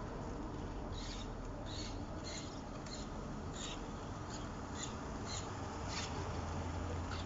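Street traffic running by with a steady low rumble, with a series of short high chirps or squeaks scattered through it.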